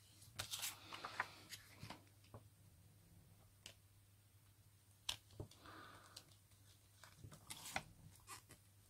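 Faint rustles and light taps of paper being handled by hand, with a soft scrape about halfway through as the sheet is slid and smoothed flat.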